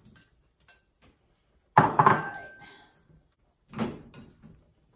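Metal cookware clattering on the stovetop: a loud double clank about two seconds in with a brief metallic ring, then another knock near four seconds.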